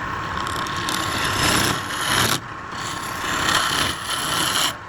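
Wood lathe running while a turning tool cuts into the spinning wood. The cutting noise swells twice, once about a second in and again past the middle, over the steady hum of the lathe.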